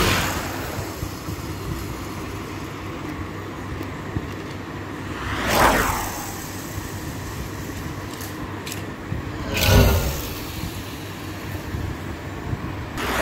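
Small toy cars rolling fast across a tiled floor, three times a brief whirring swell that rises and falls as each car goes past.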